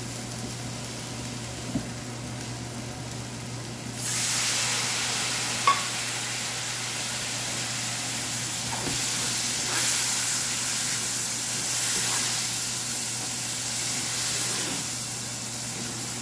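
Onion-and-tomato masala frying gently in a stainless steel pan. About four seconds in, a splash of water hits the hot pan and the sizzle jumps to a loud, steamy hiss that carries on as it is stirred with a wooden spatula, with a sharp tap about two seconds later.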